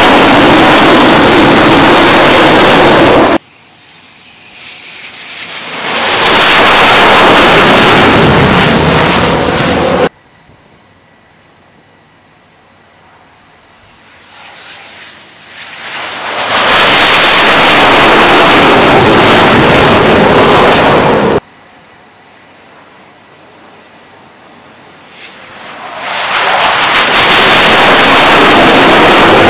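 Carrier jet fighters' engines on the flight deck, swelling from a faint high turbine whine to a loud full-power roar three times. Each loud stretch cuts off abruptly.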